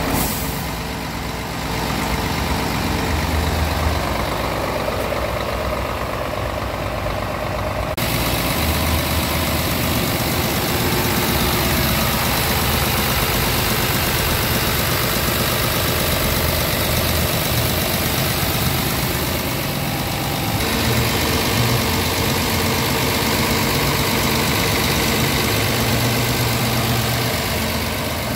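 Scania R truck's diesel engine idling steadily, heard close up in the open engine bay; the sound grows brighter about eight seconds in.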